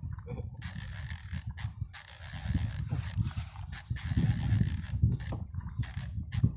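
Spinning reel under heavy load from a strong hooked fish, its drag and gears buzzing in short bursts of a second or less, over low wind and handling rumble.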